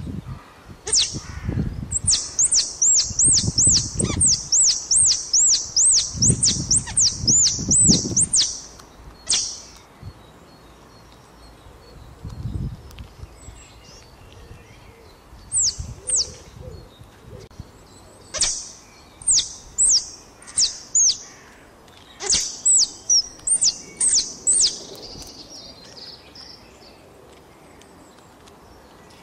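A small songbird singing runs of high, clear repeated notes, about two a second, with pauses between the runs. Low rumbles sit under the first run.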